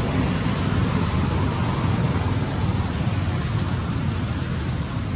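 Steady low rumbling background noise with a hiss over it, unchanging throughout; no distinct animal calls stand out.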